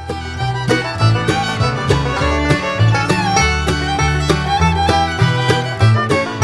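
Upbeat background music with fiddle, guitar and banjo over a steady bass line, in a bluegrass style.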